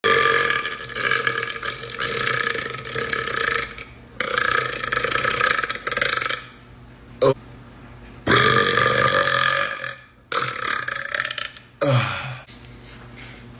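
A man belching again and again: a run of long, drawn-out burps of about two to four seconds each, with a short one about seven seconds in.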